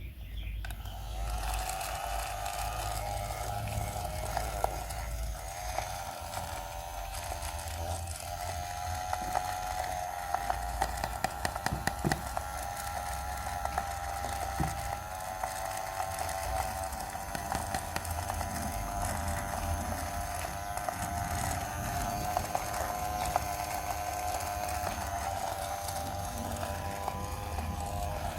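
A small motor running with a steady high whine, starting about a second in, with light rattling clicks throughout.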